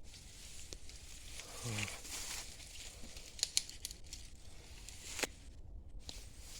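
Rustling and crinkling of dry brush or leaves being moved, with a few sharp snaps about three and a half and five seconds in, and a short sound falling in pitch about a second and a half in.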